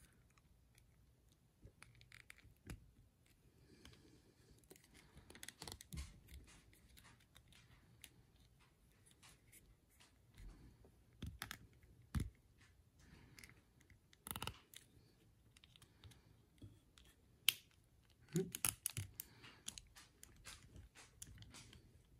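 A plastic action figure being handled and posed by hand: faint, scattered clicks, taps and rubbing. The sharpest click comes about three-quarters of the way through, followed by a short cluster of clicks.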